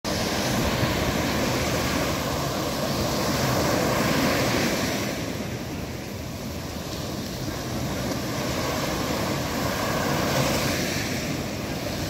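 Small sea waves breaking and washing up over a sandy beach around rocks. The surf swells, eases off midway, then builds again.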